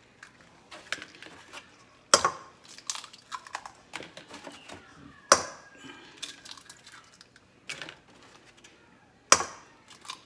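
Eggs being cracked one after another against a stainless steel mixing bowl: three sharp cracks a few seconds apart, with small clicks and taps of shell and handling in between.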